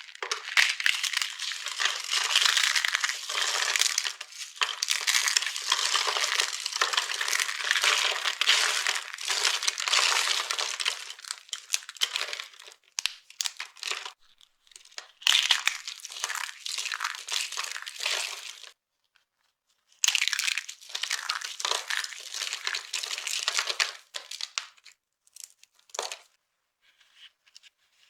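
Dry soap being crushed and crumbled, a dense crackling crunch in several long stretches broken by short pauses, dying away near the end.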